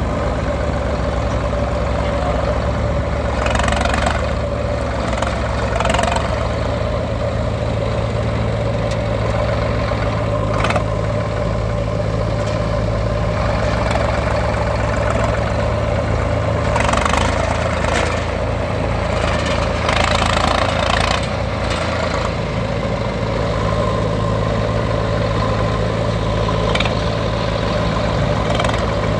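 Diesel engines of a Swaraj 744 FE tractor and a JCB 3DX backhoe loader running steadily at idle, with a few brief rushes of noise cutting in now and then.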